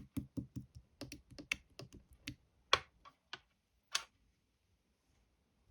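A quick, irregular series of sharp clicks or taps, about twenty of them, stopping about four seconds in.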